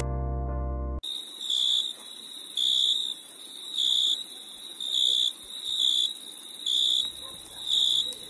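Electronic alarm beeping, a high-pitched beep about once a second, about seven times. The beeping starts about a second in, after a short electronic tone.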